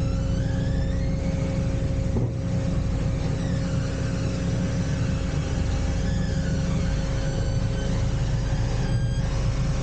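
Narrowboat diesel engine idling steadily: a continuous low rumble with a steady hum over it.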